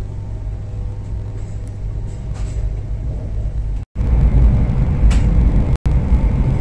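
Steady low rumble of a high-speed train running at speed, heard from inside the carriage. About four seconds in it cuts out for a moment, then comes back louder and fuller.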